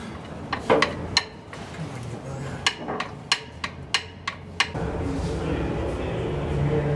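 About a dozen sharp metallic clinks and knocks, some ringing briefly, as metal tools and parts are handled during the refitting of a steam locomotive's centre connecting rod. Near the end the knocks stop and a steady low workshop rumble and hum takes over.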